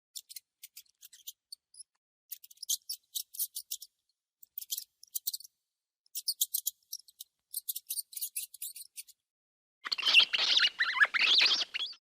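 Mouse squeaking: runs of short, very high chirps in quick succession with brief gaps between, then, near the end, a louder and fuller stretch of squeaking for about two seconds.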